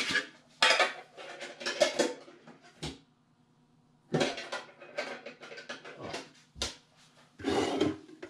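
Metal collector's tins and card packs being handled on a wooden desk: a run of clatters, knocks and scrapes, a short pause about three seconds in, then more clatter as a tin is picked up near the end.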